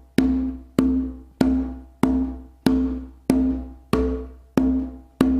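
Haitian hand drum played with open-tone strokes, the fingers held together striking the head near the edge. Nine even strokes, about one and a half a second, each ringing at a steady pitch and dying away before the next.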